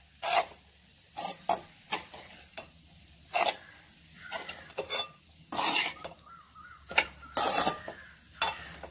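Steel ladle stirring and scraping egg fried rice in a metal kadai: about a dozen irregular scrapes and knocks against the pan, some short, some drawn out for half a second, over a light sizzle.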